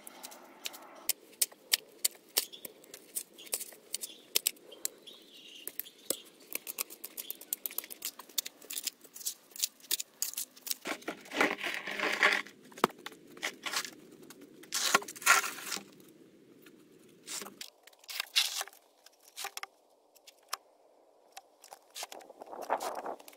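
Hand work in a stony soil trench: many short scrapes and clicks of digging and clearing earth, with louder rustling and knocking stretches as large corrugated plastic drainage pipe is carried and set into the ditch.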